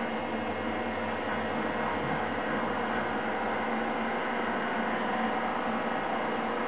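Arc welder running: a steady electric hum with a hiss over it, the low part of the hum dropping slightly about two seconds in.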